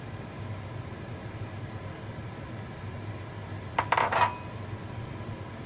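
A few quick ceramic clinks with a short ringing tone about four seconds in, as the ceramic sauce bowl knocks against a hard surface, over a steady low hum.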